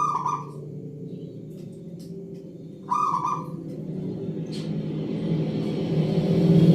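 Zebra dove (perkutut) calling: two short notes, one right at the start and another about three seconds in, over a steady low hum that grows louder toward the end.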